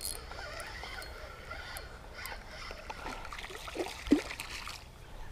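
Water splashing and trickling at the creek's grassy edge as a hooked white bass is pulled in, with a single sharp splash about four seconds in.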